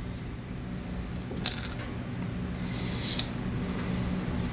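Quiet work on small engine parts: a soft click, then a short hiss, over a steady low hum.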